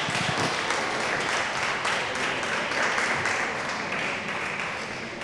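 Audience applauding, easing off near the end.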